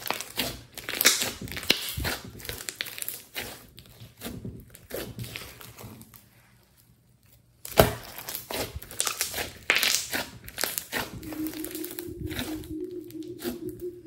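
Hands squeezing, stretching and kneading thick clay-mixed slime, giving dense wet crackling pops and squelches as air pockets burst. The crackling stops for a moment about halfway, then starts again with a sharp loud pop.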